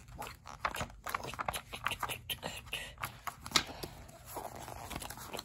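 A paper page of a hardcover book being flapped back and forth over and over, a quick run of soft rustles and slaps, about three or four a second.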